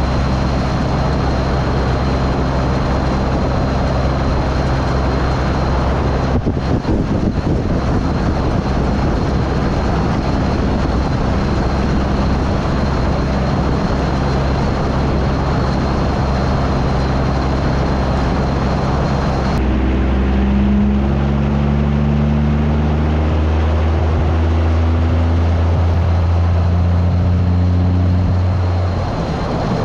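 Pickup truck driving on the road, with engine, road and wind noise. About two-thirds of the way in the engine note gets louder and climbs as the truck accelerates, then drops away shortly before the end.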